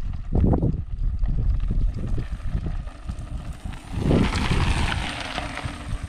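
Mountain bike coming down a gravel track and rolling past close by, its tyres crunching over loose stones, loudest about four seconds in and then fading. Gusts of wind buffet the microphone.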